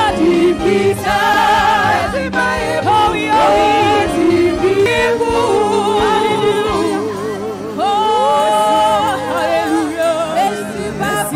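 Gospel worship singing with accompaniment, the voices holding long notes that waver in pitch.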